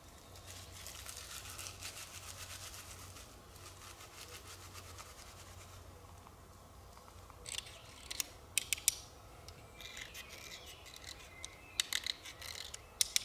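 A quick run of short scraping or rubbing strokes by hand, then, from about halfway, scattered sharp clicks and light knocks.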